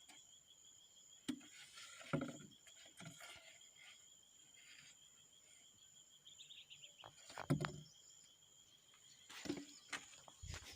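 Faint, steady high-pitched insect trilling with a fast pulse, crickets or similar, with a handful of scattered knocks or thumps.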